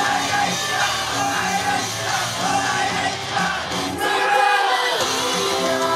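Japanese idol pop song performed live: young women singing into handheld microphones over an amplified pop backing track. The bass of the backing drops out briefly about four seconds in.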